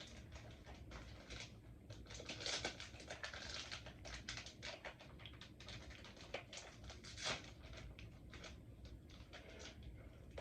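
Faint, irregular soft clicks and rustles of trading cards being slid and flipped through by hand, with one louder click about seven seconds in.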